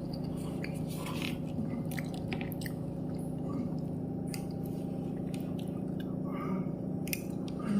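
A person chewing a mouthful of soupy Maggi masala noodles, with soft wet mouth sounds and small clicks, over a steady low hum.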